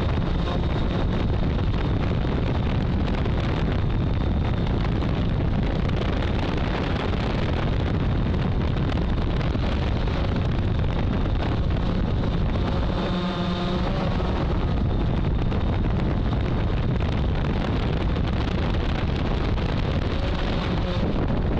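Hexacopter's electric motors and propellers running steadily, heard through the onboard camera's microphone, with wind buffeting the mic.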